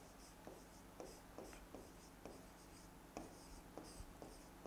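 Faint stylus writing on an interactive display screen: light taps as the pen touches down, with soft scratchy strokes between them, a dozen or so irregular ticks.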